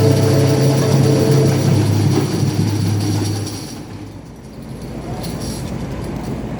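A band's held low chord, steady and noisy, fading away about three and a half seconds in and leaving quieter room noise.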